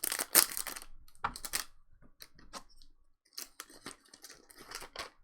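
Trading-card pack wrapper being torn open and crinkled, in a series of short crackling bursts, loudest in the first second.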